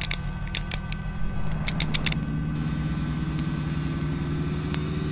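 Synthesized spacecraft sound effect for systems coming online during circuit tests. A steady low electronic drone carries thin steady tones, with short high beeps and chirps in the first two seconds. From about two seconds in, a layer of tones rises slowly in pitch as if powering up.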